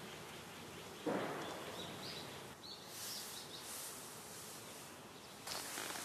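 Quiet woodland ambience: a soft rustle about a second in, then faint high hiss.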